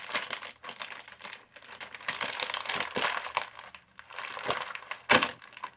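Plastic snack bag of Calbee shrimp chips crinkling as it is handled, with one loud crackle about five seconds in.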